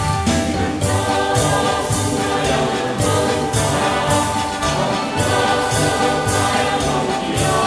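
Choir singing over a recorded accompaniment with a steady beat of about two strokes a second.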